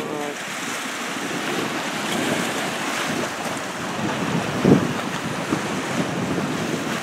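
Wind buffeting the microphone over waves washing against shoreline rocks, a steady rushing with one sharper gust about two-thirds of the way in.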